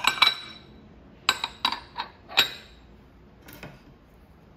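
Ceramic bowls clinking as they are nested and stacked together: a quick cluster of ringing clinks at the start, another run of clinks between one and two and a half seconds in, and a faint clatter near the end.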